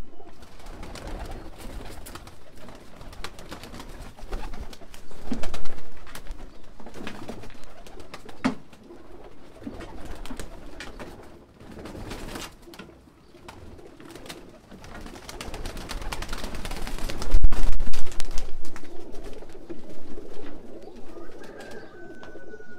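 Domestic pigeons cooing in a loft, with scuffling, knocks and bumps as a pigeon is caught by hand from its cage. The handling noise is loudest around five seconds in and again around seventeen seconds in.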